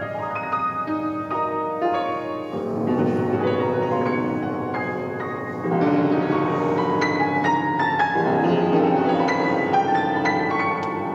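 Grand piano played solo, a steady stream of notes that gets louder a little over halfway through.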